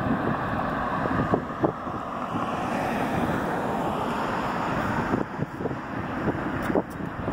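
Wind buffeting a phone microphone, rough and crackly, with a car passing close by on the street in the first few seconds, its tyre noise fading away.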